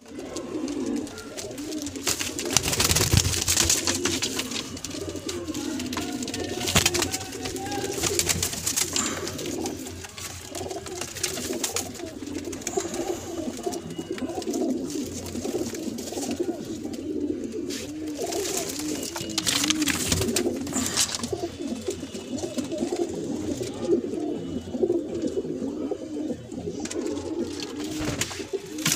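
Madrasi pigeons cooing continuously, several voices overlapping in a low wavering burble, with occasional brief bumps.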